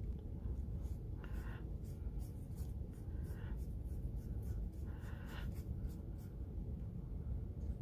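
Small paintbrush dabbing and brushing paint onto drawing paper: soft, scratchy strokes coming in short bursts every couple of seconds, over a steady low hum.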